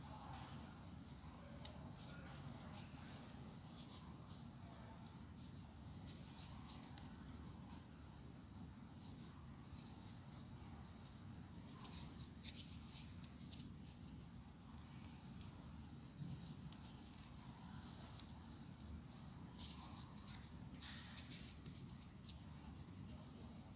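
Folded paper units of a 3D origami model rustling and clicking as they are handled and pressed together, in scattered clusters of quick, crisp ticks, over a steady low hum.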